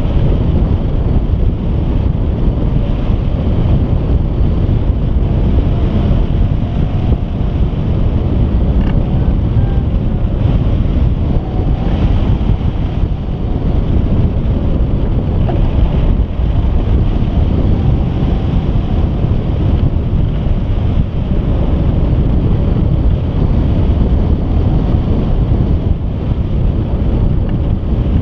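Airflow buffeting the microphone of a camera mounted on a hang glider in flight: a steady, loud rushing of wind noise, heaviest in the low end.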